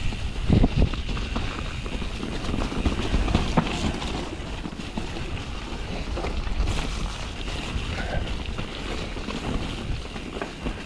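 Santa Cruz Nomad mountain bike rolling downhill over a forest dirt singletrack: tyre and trail noise mixed with wind buffeting the camera microphone, and a few knocks and rattles from the bike over the ground, the loudest about a second in.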